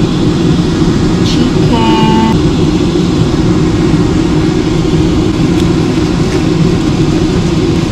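A loud, steady low rumble runs under everything, with a few faint crinkles of plastic cling wrap being rolled by hand.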